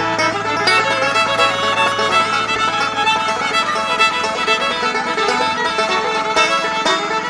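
Background music: bluegrass-style tune with fiddle and plucked strings such as banjo and guitar.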